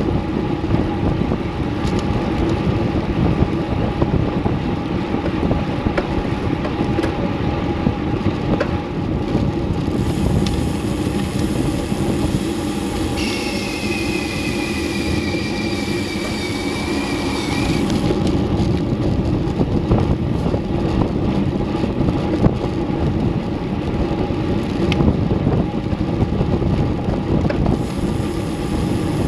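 Wind rushing over a bicycle-mounted action camera's microphone, with tyre and road noise from a road bike riding at about 20 mph. A thin high whine rises out of it for about five seconds midway, falling slightly in pitch.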